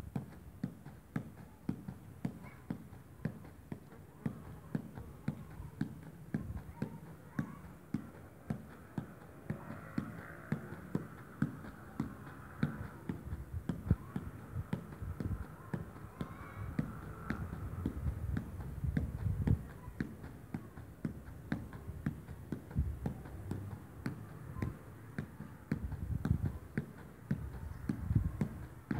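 Small ball being juggled on the feet: a quick series of soft kicks and taps, about one to two a second, kept up throughout.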